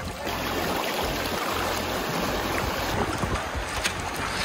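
Shallow river water rushing over riffles and around a drifting bamboo raft, a steady babbling wash.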